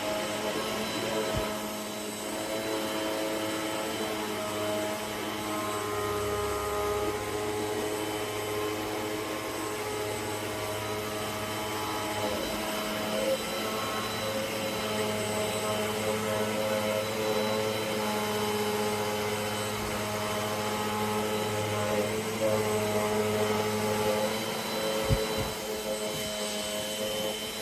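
Eureka Airspeed bagless upright vacuum cleaner running steadily, its motor giving a constant whine over a low hum.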